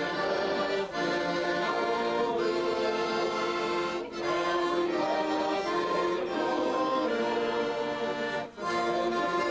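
Piano accordion playing a tune in held chords, with short breaks about a second in, at about four seconds, and near the end.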